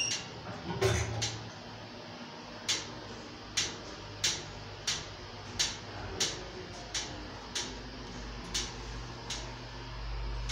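Hydraulic passenger elevator cab sounds: a short electronic beep at the very start, then a steady low hum with regular sharp clicks about one and a half a second. A low rumble grows louder near the end.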